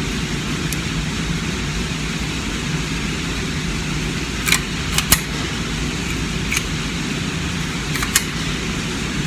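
A few light, sharp metallic clicks in the second half, some in quick pairs, from pistol cartridges and a magazine being handled while the ammunition is swapped. A steady background hiss and low hum run underneath.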